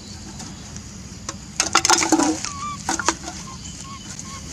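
A puppy chewing an aluminium drink can in dry grass: a loud flurry of crackling and crunching about halfway through, with more crackles just after, and a few short, soft, high peeps in between.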